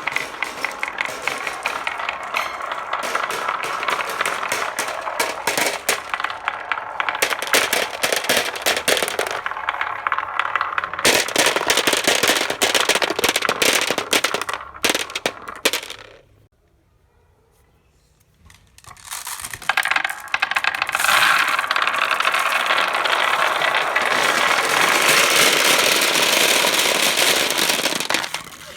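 Many glass marbles rolling and clattering down a handmade wooden marble-run trough, a dense rapid rattle of clicks. It dies away about sixteen seconds in, then starts again some three seconds later and runs on until just before the end.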